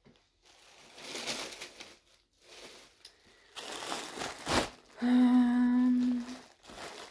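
Plastic poly bag crinkling and rustling as a wrapped garment is pulled out and handled. About five seconds in comes a woman's closed-mouth "hmm", held at one steady pitch for about a second and a half.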